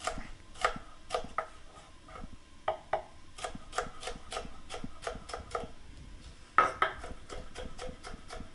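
Chef's knife slicing jalapeño peppers on a wooden cutting board: a string of uneven knocks of the blade through the pepper onto the wood, turning into quicker, steadier chopping in the last couple of seconds.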